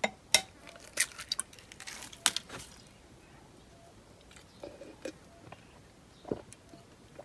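Sharp taps and cracks of an eggshell being broken against a glass bowl, several in the first couple of seconds; later, a few soft gulps as raw egg is swallowed straight from the glass.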